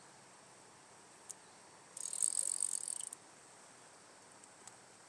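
Fly reel's clicking ratchet buzzing for about a second, a little under halfway through, as line runs on or off the reel while a hooked trout is played. A single click comes shortly before it, over a faint steady hiss.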